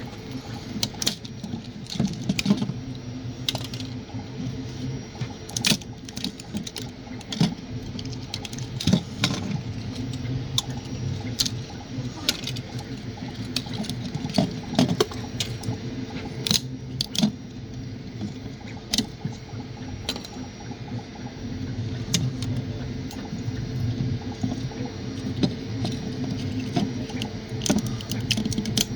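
3D printer running, its stepper motors whirring in shifting low tones, with frequent sharp irregular clicks.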